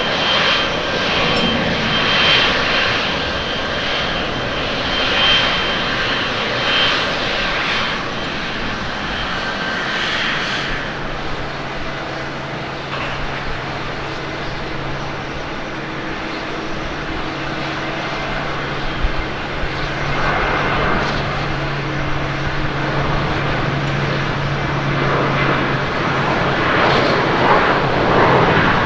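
Jet airliner engines as a twin-jet climbs away after takeoff, with a high whine over the jet noise, for the first ten seconds. Then steadier airport noise with a low hum. Near the end a Boeing 737-800's CFM56 engines build to takeoff thrust on its takeoff roll, growing louder.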